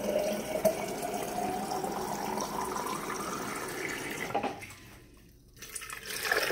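Water pouring into a vessel, its pitch rising steadily as the vessel fills. The pour stops about four and a half seconds in, and after a brief pause liquid starts pouring from a glass bottle into the large glass jar of cucumbers.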